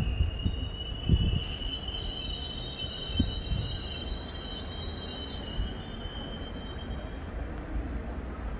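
SBB push-pull passenger train rolling slowly into the platform as it brakes, with a high steady squeal over a low rumble and a few low thumps early on. The squeal fades out near the end as the train nears its stop.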